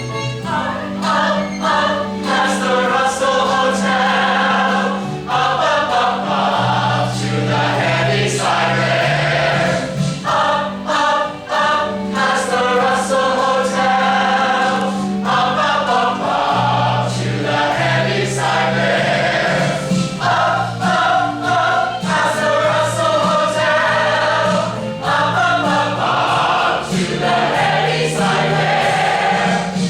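Music: a choir singing in full chorus over instrumental accompaniment.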